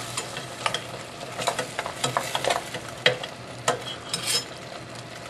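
Slotted metal spoon stirring beef short ribs through thick, hot sauce in a stainless steel pot: scattered clinks and scrapes of the spoon against the pot over a faint sizzle of the sauce. The clinks stop a little after four seconds in.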